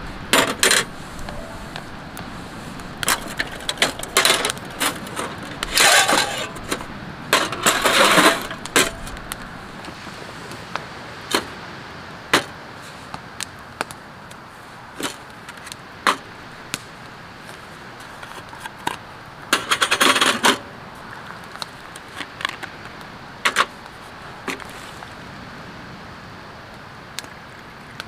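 Metal camp gear clinking and clattering on a steel-topped camp table as a windscreen and a small brass burner are handled and set in place: scattered sharp clicks and knocks, with a few longer rattling bursts.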